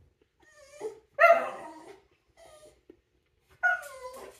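A dog giving about four short, high-pitched cries, the loudest about a second in; the last one falls in pitch.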